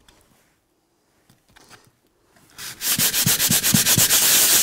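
Folded 120-grit sandpaper sanding a dried filler patch on a painted wall by hand, held flat under the palm. After a quiet start, quick back-and-forth scratching strokes begin about two and a half seconds in and keep going.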